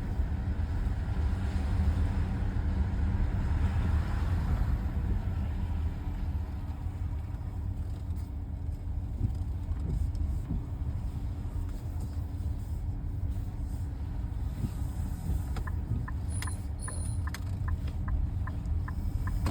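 Cabin of a Nissan X-Trail (T33) on the move, with steady low road rumble. About three-quarters of the way in, a regular sharp ticking starts, roughly three ticks a second: the intermittent abnormal noise while driving, whose cause a dealer inspection did not find.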